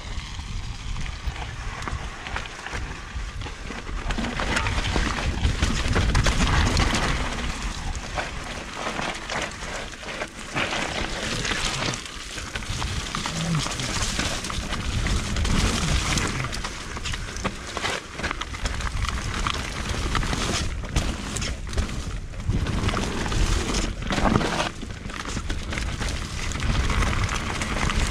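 Merida e160 electric mountain bike descending dirt singletrack: tyres rolling over dirt and leaf litter, with frequent clicks and knocks of the bike rattling over bumps. Wind buffets the camera microphone as a low rumble that swells and fades with speed.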